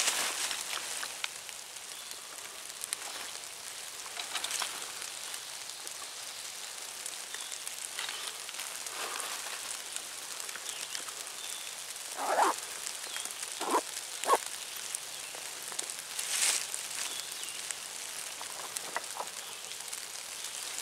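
Dry leaf litter crackling and rustling, with a few short, sharp calls about twelve to fourteen seconds in and a louder rustle a couple of seconds later.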